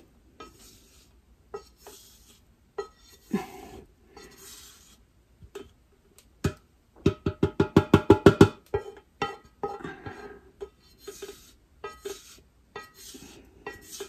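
Irregular knocks and taps as a container is tapped on a plastic funnel set in a glass mason jar to shake dry cassava flour through. Each knock rings briefly. A little past the middle comes a quick run of about a dozen rapid taps.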